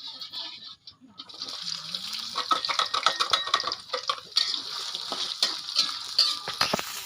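Water being handled, splashing and rubbing with many small clicks, as in washing food by hand; it builds up about a second in.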